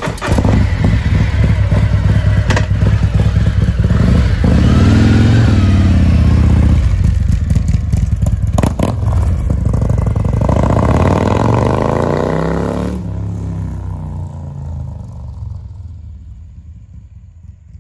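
Harley-Davidson touring motorcycle's V-twin engine revving hard several times, then pulling away and fading into the distance over the last few seconds.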